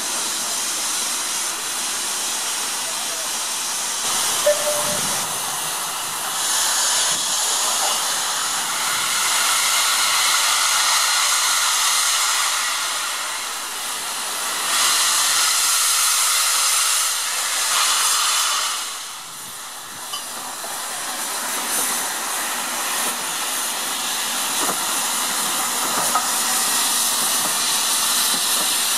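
Steam hissing from GNR Class N2 0-6-2T tank locomotive No. 1744 as it moves slowly with steam blowing from around its cylinders. The hiss swells and fades in long waves, with a brief dip about two-thirds of the way through.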